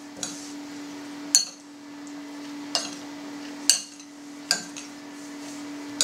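Metal spoon stirring diced cooked vegetables in a glass salad bowl, clinking sharply against the glass about five times between soft mushy rustles. A steady low hum runs underneath.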